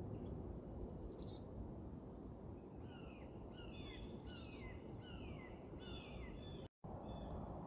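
A songbird calling: a run of short, high, downward-sliding chirps at about two a second, starting about three seconds in, over a steady low outdoor rumble.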